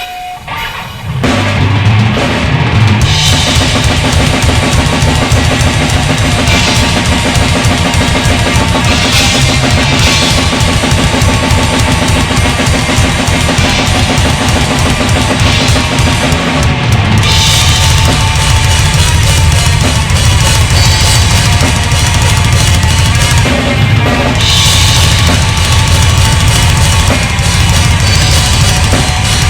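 Rock music driven by a full drum kit, with a steady pounding bass drum and cymbals. The music comes in about a second in and carries on at full level.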